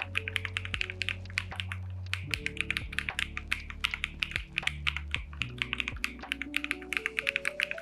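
Rapid typing on an AKKO MonsGeek M1W aluminium-cased mechanical keyboard, several keystrokes a second, with background music underneath: a steady bass and a run of notes climbing upward near the end.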